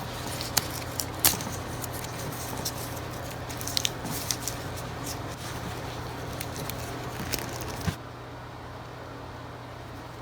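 14/2 Romex cable being stripped by hand: the outer plastic jacket crackles and rustles as it is slit and peeled back, with several sharp clicks from the sheath stripper and cable handling. The handling stops about eight seconds in, leaving a low steady hum.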